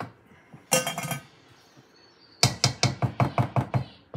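A spoon clinking and knocking against mixing bowls: a short clatter about a second in, then a quick run of about ten taps lasting a second and a half.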